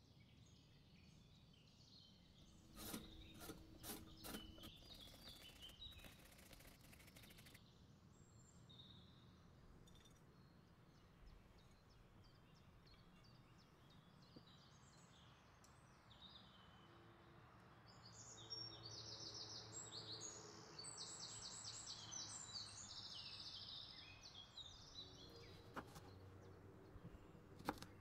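Faint food-preparation sounds: a few knocks and clatters early on, then several seconds of quick, evenly repeated scraping strokes.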